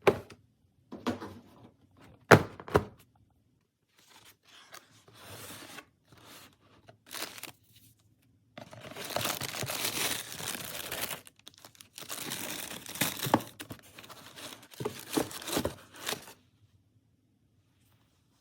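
Packaging being opened and handled: two sharp knocks a little over two seconds in, then rustling and long stretches of wrapping being torn and crinkled.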